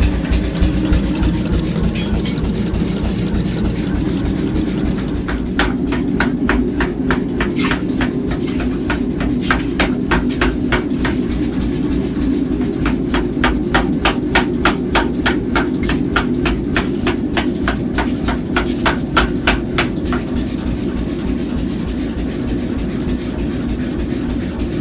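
Rapid, regular hammer blows on metal, about four a second, starting a few seconds in and stopping a few seconds before the end, over a steady low hum.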